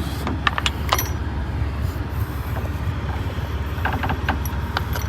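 Diesel semi-truck engine idling with a steady low rumble, with scattered short metallic clicks and clinks, as of a cargo strap's hooks being handled.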